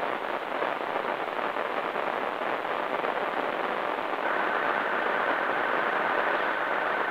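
Steady hiss of radio static from a receiver tuned to the disaster-prevention radio channel, with the chime melody just finished. About four seconds in, a steady high tone joins the hiss.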